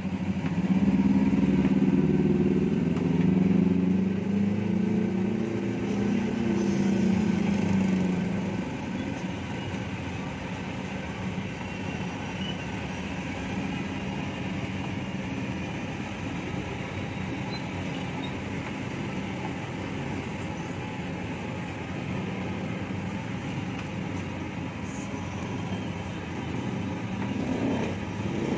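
Road traffic: a motor vehicle's engine runs close by for the first eight seconds or so, a low steady hum, then fades into a quieter continuous rumble of passing traffic.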